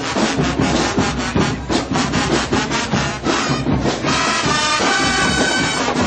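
School marching band playing live: brass section over a quick, steady drum beat.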